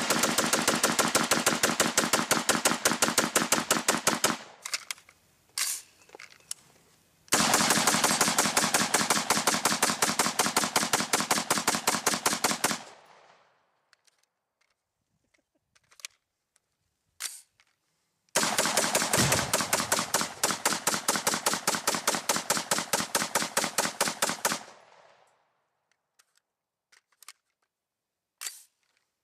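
AR-15 carbine fired in three long, rapid strings of shots, about ten a second, with short pauses between strings and a few single reports in the gaps.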